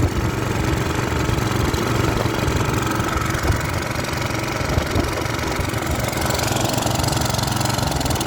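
Small pressure washer engine running steadily on fuel laced with automatic transmission fluid, the ATF that is about to stall it.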